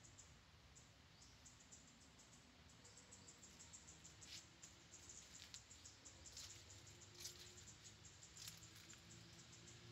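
Near silence: faint outdoor background with scattered soft, high, irregular ticks.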